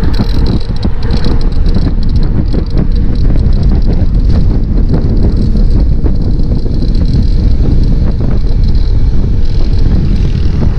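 Heavy wind buffeting on the camera microphone from a gravel bike descending at speed, with the tyres rumbling over the concrete road. The rumble is loud and steady throughout.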